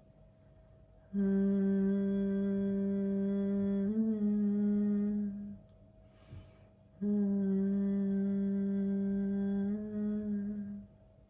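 A woman humming two long, steady low notes as a gentle vocal exercise, each held about four seconds with a breath in between. The pitch shifts slightly near the end of each note.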